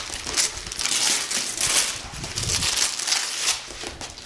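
Gift wrapping paper being torn and crinkled off a cardboard box by hand, in a run of ripping and rustling bursts.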